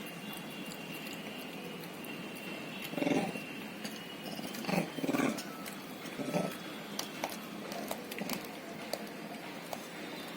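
A monkey giving a few short, rough calls in the middle, followed by scattered small clicks.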